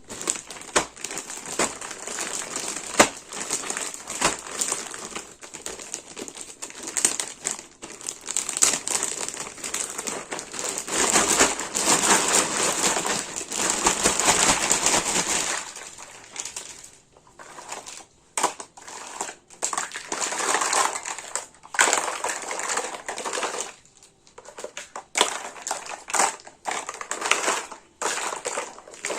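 Plastic packaging crinkling and rustling as a toy set is unboxed by hand, with small clicks and taps. The crinkling is dense and continuous for about the first half, then turns into sparser, separate crinkles and clicks with short pauses.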